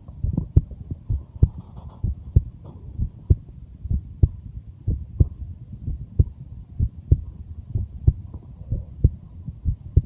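A 23-year-old's heartbeat: paired low lub-dub thumps repeating steadily at about one beat a second, over a low hum.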